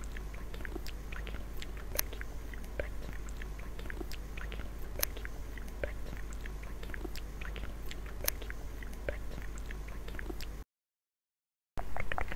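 Close-miked ASMR mouth sounds: irregular wet clicks and pops of the lips and tongue, a few a second, over a low steady hum. The sound cuts out for about a second near the end, then comes back as a quicker run of clicks.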